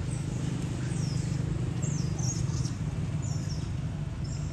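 Several short, high-pitched falling chirps from an animal, spaced a second or so apart, over a steady low rumble.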